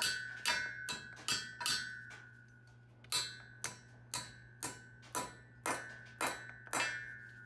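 Claw hammer tapping concrete sleeve anchors down through a steel column base plate: a series of sharp metallic taps, roughly two a second with a short pause after about two seconds, each strike leaving a high ringing tone. A low steady hum runs underneath.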